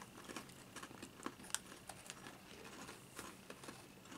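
Faint, scattered crisp clicks and crunches of people chewing small crunchy red bean crackers.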